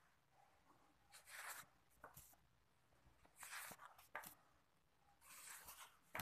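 White card mounts being slid off a stack one after another: three papery swishes, each followed by a light tap as the card is set down.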